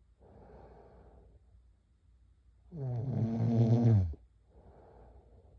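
A girl snoring in her sleep. One loud, pitched snore comes a little under three seconds in, with quieter breathy sounds before and after it, in a slow repeating rhythm.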